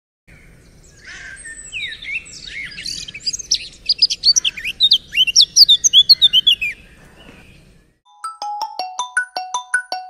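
Birds chirping: a dense flurry of quick, high chirps and twitters for about seven seconds. About eight seconds in, a mobile phone ringtone starts, a quick marimba-like tune of bright notes that keeps repeating.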